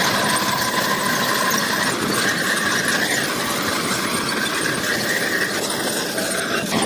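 Bulldozer working, its engine running steadily under a high squeal, typical of steel crawler tracks grinding through their rollers and idlers.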